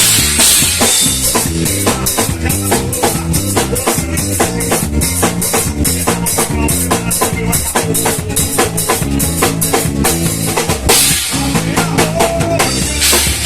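Live band music without singing, led by an acoustic drum kit played through a small sound system: bass drum and snare keeping a fast, steady beat over bass notes, with cymbals washing in about eleven seconds in.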